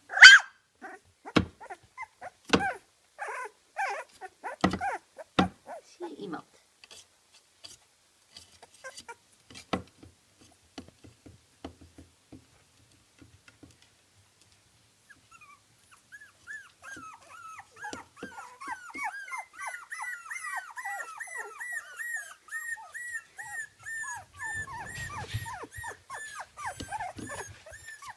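A litter of young Kooikerhondje puppies, about 24 days old, yipping in sharp, short calls for the first few seconds. After a quieter stretch, they set up a steady run of high-pitched whimpering, several calls a second, until the end.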